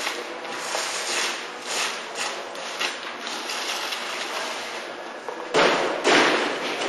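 A steel crowbar scraping and prying against the metal frame and glass of a security display case in a run of short, rough strokes, with two louder knocks near the end.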